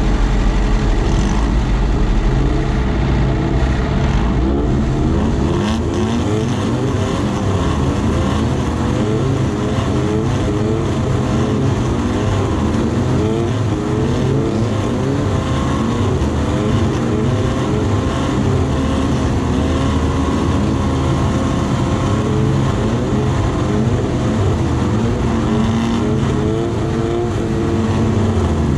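Off-road race buggy engine running at idle, its pitch wavering slightly, with other race cars' engines running around it.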